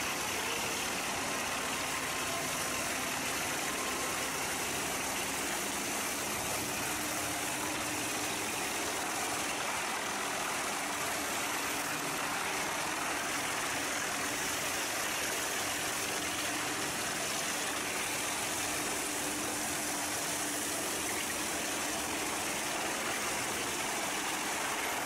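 A heavy machine's engine running steadily, a constant mechanical noise with no sudden events.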